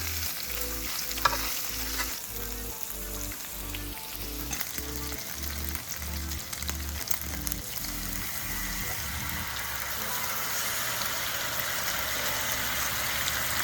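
Food frying in a hot pan: a steady sizzle that grows louder over the last few seconds, with a few clicks of utensils. Low background music plays under it for the first two-thirds.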